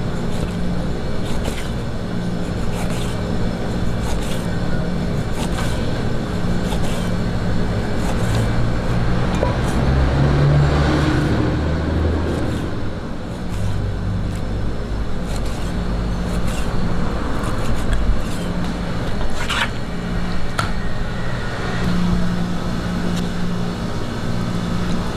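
Cleaver slicing raw duck meat on a cutting board, the blade knocking on the board about once a second. Background music with sustained low notes and a steady rushing noise run underneath.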